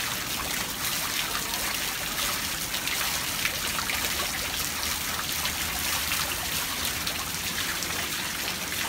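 Steady rain falling: an even hiss with scattered drips and splashes.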